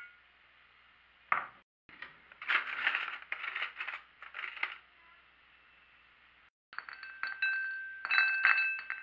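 Crockery and cutlery clinking: a white ceramic bowl is lifted off a stack of plates, then a drawer is pulled open with a clatter about two and a half seconds in. Near the end comes a run of ringing clinks.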